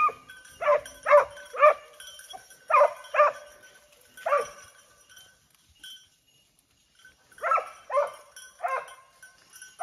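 Hunting dog barking in short groups of two or three, about nine barks with a quiet pause in the middle: a hound giving tongue while trailing and rousing a wild boar.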